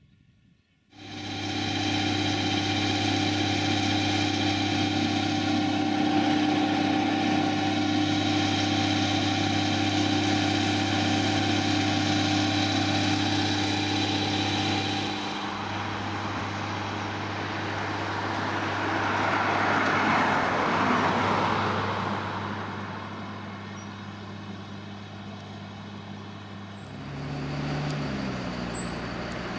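Large diesel engine running steadily at constant revs. About two-thirds of the way in, a rushing vehicle noise swells and fades, and near the end a different engine note comes in, shifting pitch in steps.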